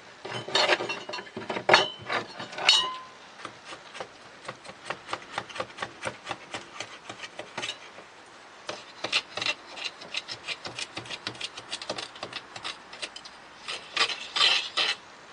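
Small hand tool scraping and digging packed foundry greensand out of the core inside a freshly cast aluminum ring: a steady run of quick, gritty scrapes, about five a second, with louder bursts of scraping near the start and near the end.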